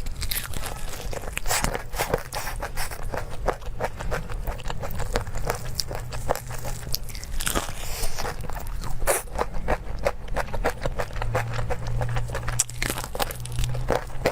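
Close-miked chewing and biting of crunchy food: a fast, irregular run of crisp crunches.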